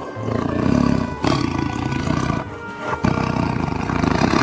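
Tiger roaring in long, rough roars, a new one starting about a second in and another about three seconds in, over background music.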